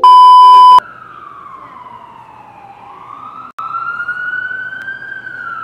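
A loud, steady test-tone beep that goes with the TV colour-bar pattern, cut off within the first second. It is followed by an emergency-vehicle siren wailing slowly down in pitch and back up, with a brief dropout a little past halfway.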